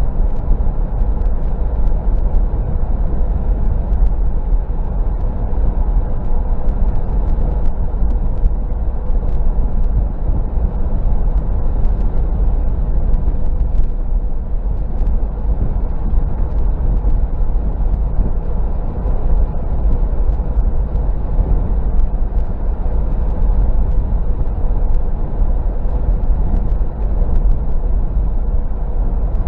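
Steady driving noise heard inside the cabin of a 2014 Toyota 4Runner cruising on pavement on Falken Wildpeak AT3W all-terrain tyres: a deep, even rumble of tyres and drivetrain, with a faint steady hum over it.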